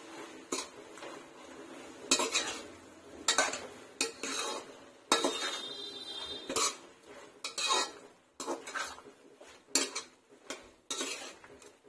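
Metal spatula scraping and knocking against an aluminium kadai as sliced ridge gourd and radish are stirred, in irregular strokes about once a second. One stroke near the middle leaves a brief metallic ring.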